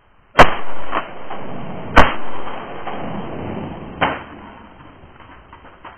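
Shotgun fire: two loud blasts about a second and a half apart, then a third, weaker shot about two seconds later. Each shot trails off in a long rumble.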